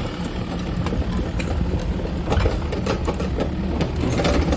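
SDLG E655F excavator's diesel engine running steadily, with scattered short clanks and knocks from the machine.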